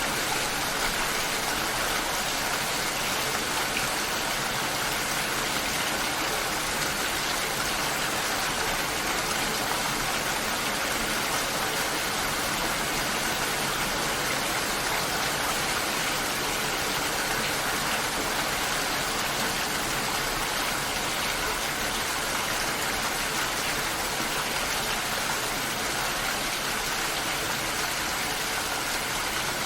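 Steady rain, an even dense hiss with no single drops or other sounds standing out.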